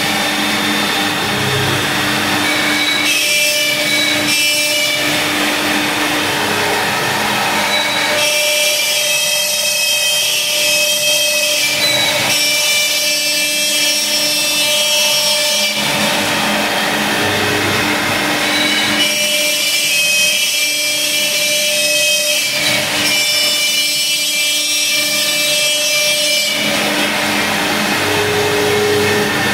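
Laguna Swift CNC router cutting 1/2" plywood: a steady spindle whine over the rasp of the bit in the wood, with the cutting noise shifting every few seconds as the tool path changes.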